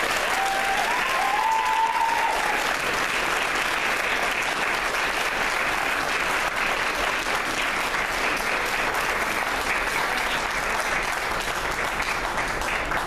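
An audience applauding steadily, with a high call rising over the clapping in the first two seconds.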